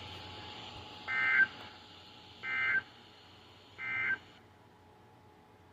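Emergency Alert System end-of-message code: three short data-tone bursts about a second and a half apart, marking the end of the flash flood warning broadcast. A steady hiss from the receiver cuts off suddenly soon after the third burst.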